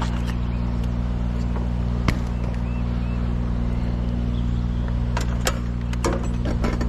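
An engine idling steadily at a constant low pitch, with a few sharp knocks and clicks over it.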